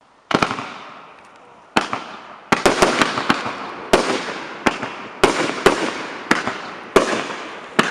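Fireworks cake (PT-91B 'Assorti' salute battery, 100 mm calibre) firing: a quick series of sharp bangs at irregular intervals, about fourteen in all with a tight cluster a few seconds in, each followed by a fading hiss and crackle.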